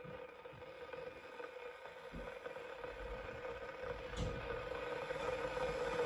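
ASCOT 1500 W stainless steel electric kettle heating water as it comes to the boil: a steady hissing rumble that grows gradually louder. A soft knock comes about four seconds in.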